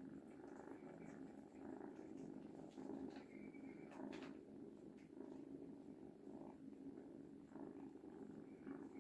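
Cat purring, a low rough hum that swells and fades about once a second with each breath.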